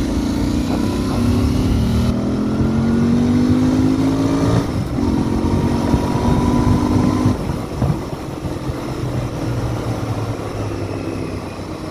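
Royal Enfield Interceptor 650's parallel-twin engine under way. Its note rises steadily, drops sharply at a gear change about five seconds in, holds steady, then falls off as the throttle is closed a couple of seconds later.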